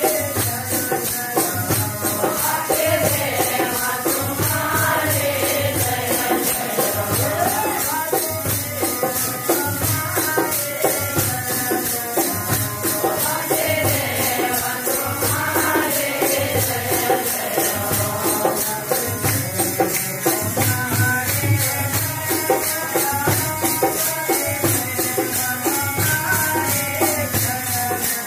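Devotional bhajan kirtan: voices singing over fast, steady jingling hand percussion and a regular drum beat.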